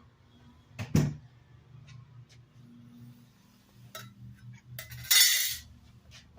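Metal clinks and knocks from handling screws and the clothes dryer's sheet-metal back panel during disassembly. There is a sharp loud clink about a second in, then lighter clicks and a brief loud scrape about five seconds in.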